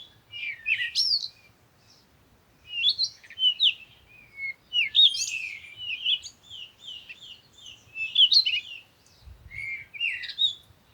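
High-pitched chirping and twittering calls in quick bursts of short sliding notes, with brief pauses between bursts.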